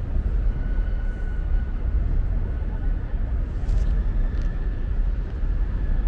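Outdoor city ambience made up of a steady low rumble, with a faint thin steady tone above it.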